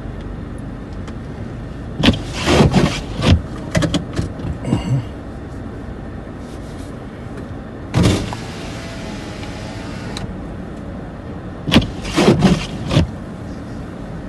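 Outdoor traffic ambience: a steady hiss with a car passing, broken by clusters of short, louder bursts of noise about two seconds in and again near the end.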